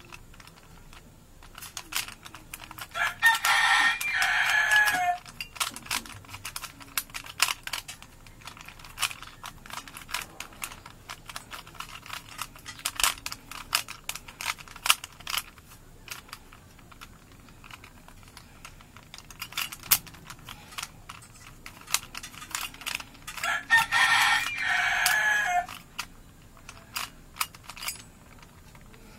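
Rapid, irregular plastic clicking and clacking of a Rubik's cube as its layers are turned by hand. Twice, about twenty seconds apart, a loud drawn-out call of about two seconds rises over the clicking.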